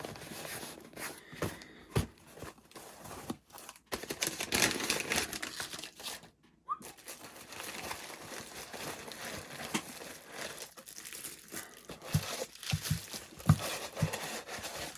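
Hands tearing open a mailed package: tape and packaging tearing and crinkling, with scattered knocks as the box is handled.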